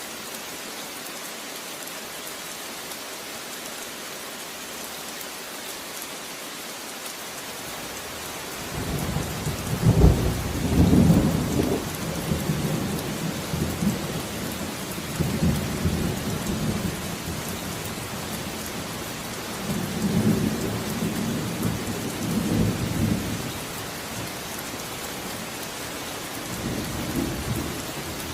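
Steady rain falling. About a third of the way in, thunder rolls in, loudest near the start, then rumbles on in several further swells.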